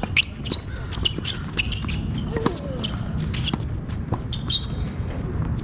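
Tennis rally: a run of sharp racket strikes and ball bounces, with short shoe squeaks.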